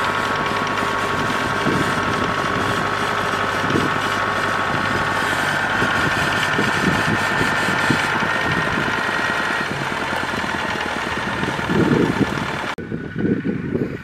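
Kubota DC-70 rice combine harvester running close by, its diesel engine and machinery making a steady noise with a high whine that stops about ten seconds in. Near the end the sound cuts abruptly to gusts of wind on the microphone.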